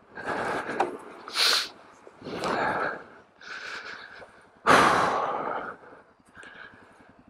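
A person breathing hard from the effort of pushing a heavy loaded motorcycle backward, breaths coming roughly once a second, the loudest about five seconds in.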